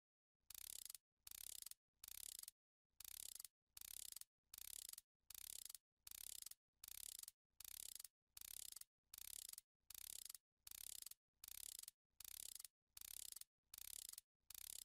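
Faint, regular rasping strokes of a hand tool working metal, about three strokes every two seconds, each a short hiss with a brief silent gap between.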